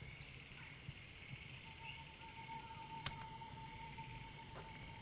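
Crickets chirping in steady, high, pulsing trills. About a third of the way in a steady single tone joins them, and there is one sharp click just past halfway.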